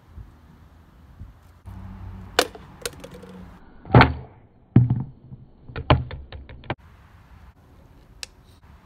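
Plastic water bottle dropped onto pavement, hitting with thuds and then a quick run of taps as it bounces. The loudest thud comes about four seconds in.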